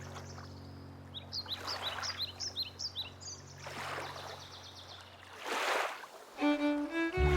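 Soft background music holding a sustained string chord, with a small bird chirping rapidly about a second in and water lapping in gentle swells. Near the end the chord stops and a new piece with distinct picked notes and a deep bass begins.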